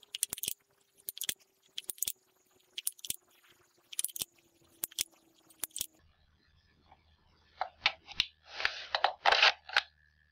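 Rubber bands being stretched and hooked onto a wooden bolt-action rubber band gun: a run of sharp clicks and snaps, often in pairs, about two a second. Near the end come several louder clattering bursts as the wooden gun is handled.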